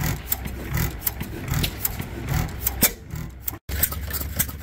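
Antique single-cylinder stationary gas engine with twin flywheels running: low exhaust thumps about every half to three-quarters of a second under a quick clatter of valve gear and igniter clicks. The sound breaks off for a moment about three and a half seconds in.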